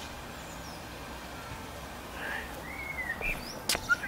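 Small birds chirping in short calls over steady outdoor background noise, with a sharp click near the end and a smaller one just after it.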